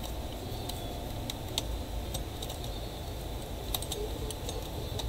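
Scattered light plastic clicks and taps as a laptop's DC power connector and its cable are pressed and routed into place in the open chassis, over a steady low hum.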